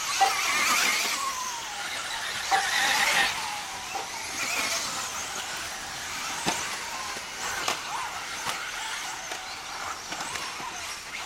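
Electric 1/10-scale off-road RC buggies racing on a dirt track: high-pitched motor whine and tyre noise swell loudly twice in the first few seconds as cars pass close, then carry on fainter, with a few sharp knocks.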